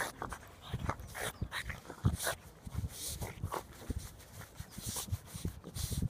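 French Bulldog digging in loose dry dirt, its front paws scraping and flinging soil in quick irregular strokes, while it snores and snorts through its short nose with its face in the hole.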